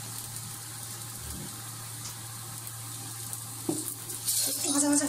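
Chopped garlic sizzling steadily in hot oil in a frying pan, over a steady low hum. The hiss flares louder about four seconds in.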